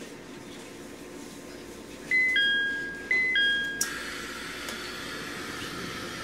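Two-note door chime of a JR East E721 series train, high then low, sounding twice. A clunk follows and then a steady rush of noise as the doors move, over a steady low hum from the train.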